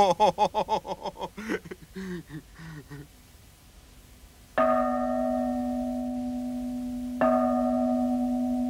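A large tower bell rung by its rope: two strokes about two and a half seconds apart, each ringing on until the next. Before the bell, a wavering, pulsing tone fades out over the first three seconds.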